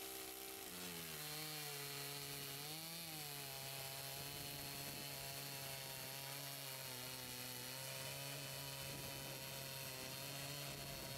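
Makita EA5000P 50cc two-stroke chainsaw running at full throttle with an Upstart full-chisel chain, cutting through a stack of 4x4 timbers under its own weight plus a hanging 2.5 lb plate. The engine note drops as the chain bites in about a second in, wavers briefly near three seconds, then holds steady under load.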